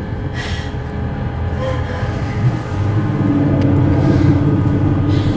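A steady, low droning rumble with a few faint higher tones and a soft breath-like hiss about half a second in.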